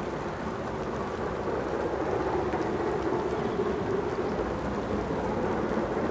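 Steady distant roar of BR Standard Class 7 Pacific 70000 'Britannia' working hard up the climb with a heavy load, swelling a little about two seconds in as it comes nearer.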